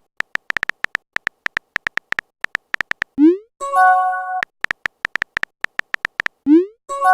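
Electronic sound effects: trains of very short high beeps, several a second, broken twice by a rising swoop and a brief held electronic chord, the pattern repeating about every three seconds.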